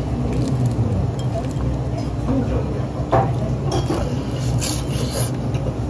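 Small restaurant ambience: a steady low hum with background voices and the clinks of dishes and glass, one sharper clink about three seconds in.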